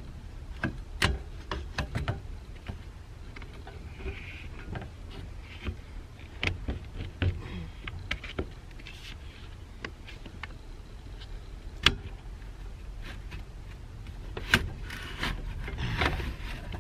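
A small pry bar working loose a car's interior trim panel: scattered clicks, knocks and snaps at irregular intervals, the sharpest about twelve seconds in.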